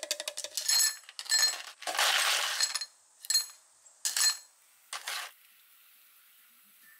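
Glassware clinking: four short clinks, each with a bright ringing tone, and a longer scraping rustle about two seconds in. Then it falls quiet.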